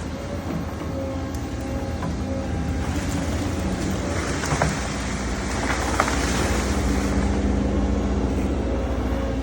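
Diesel engine of heavy earthmoving machinery, an excavator or dump truck, running steadily with a low rumble. There are a couple of faint sharp knocks about halfway through.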